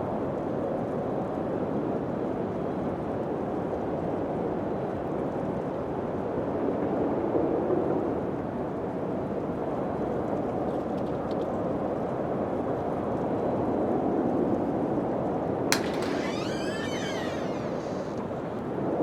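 Steady wind blowing in slow swells. About three-quarters of the way through comes a sharp click, then a brief run of quick high squeaking chirps.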